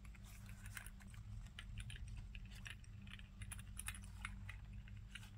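Faint, scattered clicks and rustles of a handbag's small leather pouch being handled: its leather tab being threaded through the shoulder strap, with its metal clip and hardware clicking, over a low steady hum.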